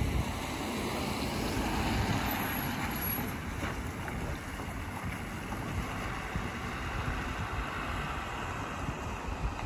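Street ambience on a wet road: wind buffeting the microphone over the steady hiss of a vehicle's tyres on wet asphalt as a pickup truck drives past.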